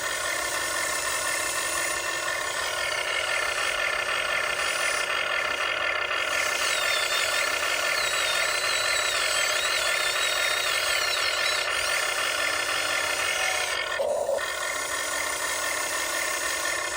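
Huina 1599 RC excavator's electric motors whining steadily as the machine digs, with a short break about fourteen seconds in. It is running underpowered on a battery that was never charged.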